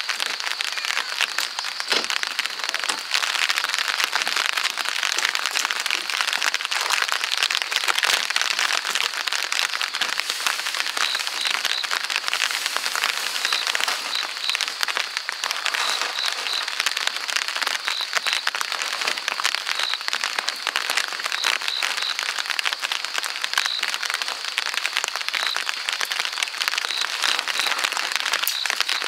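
Rain falling steadily, a dense crackling patter of drops on a wet wooden deck and tent.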